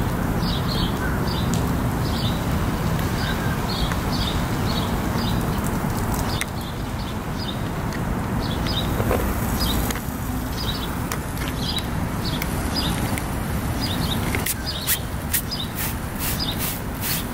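Steady low background noise with a small bird chirping over and over, about twice a second. Near the end, a hand spray bottle squirts in quick repeated spritzes.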